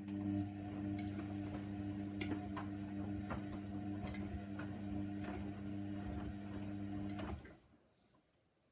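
Hoover Nextra washing machine's drum motor turning the drum in a wash tumble: a steady motor hum with irregular clicks and taps from the load, stopping abruptly near the end as the drum pauses.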